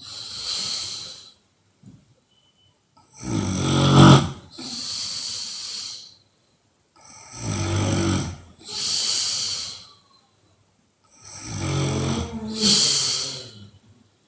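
A woman snoring loudly in deep sleep: three snores about four seconds apart, each a low buzzing snore followed by a long breathy exhale.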